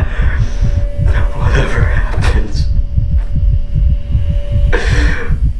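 A man sobbing and crying out in anguish three times, over a deep, pulsing rumble.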